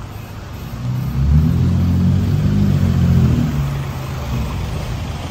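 A road vehicle's engine running close by, its low steady note swelling about a second in and easing off after about three and a half seconds, over steady traffic noise.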